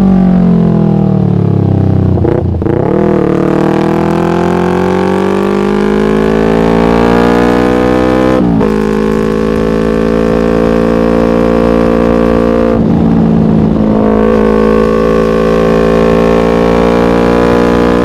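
Yamaha MT-25's parallel-twin engine through a Shadux aftermarket racing exhaust. The engine note falls for about two seconds, then climbs steadily. It dips sharply about eight and a half seconds in and again near thirteen seconds, and holds fairly steady between and after.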